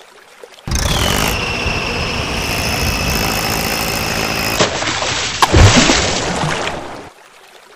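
A vehicle engine running loudly, with a steady high whine over it, cut off suddenly about four and a half seconds in. Heavy thumps and a splash follow as a toy tractor lands in muddy water, and the sound fades out near the end.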